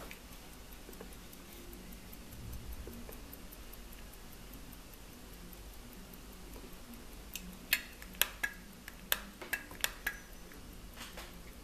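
Gold pocket watch ticking quickly and steadily, about five beats a second. Past the middle comes a run of sharp metallic clicks and strikes that ring briefly, followed by two more near the end.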